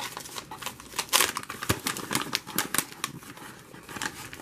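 A plastic soft-bait package being torn open and worked by hand: a quick run of sharp crinkles and crackles from the plastic, loudest about a second in.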